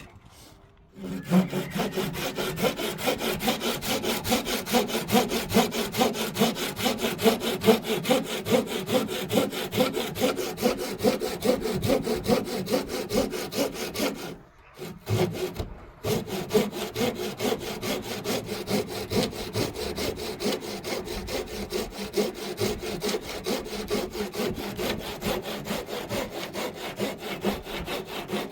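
Hand saw cutting through a wooden beam in quick, even back-and-forth strokes. It starts about a second in, stops briefly around the middle, then carries on sawing.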